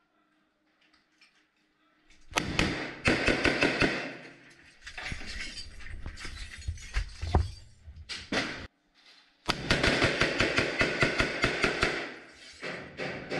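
Rifle gunfire at close range in a gunfight: a fast run of shots starts about two seconds in, scattered shots follow, and after a short pause comes another long, fast run of shots.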